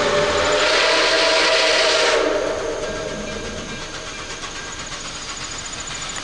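Nickel Plate Road 765's steam whistle blowing a loud chord of several notes, typical of a locomotive whistling for a grade crossing. It cuts off about two seconds in, leaving a few seconds of quieter running noise.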